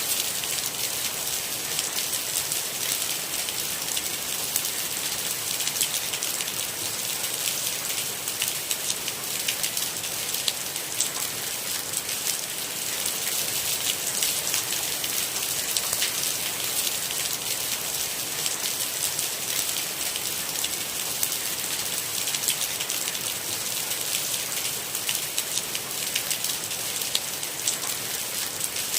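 Steady rain: a dense, even hiss made of countless small drop hits, with no let-up.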